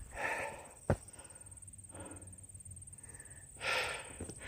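A hiker's breathing: two audible breaths, one at the start and one near the end, with a single sharp click about a second in.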